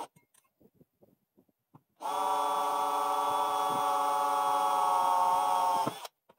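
Craftsman cordless drill running steadily for about four seconds as it bores a hole through an aluminum solar-panel mini rail, starting about two seconds in and stopping shortly before the end. A few light handling clicks come before it.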